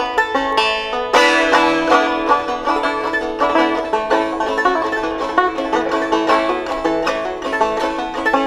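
Five-string banjo played solo: a steady, rhythmic run of picked notes, with a loud strummed chord about a second in.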